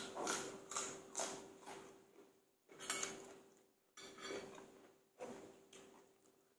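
Close-miked crunchy chewing of raw fresh vegetables: a quick run of crunches, then slower single ones, mixed with chopsticks clicking against a ceramic bowl.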